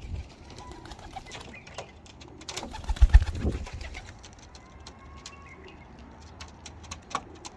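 Racing pigeons cooing, with scattered sharp clicks and a loud low thud about three seconds in.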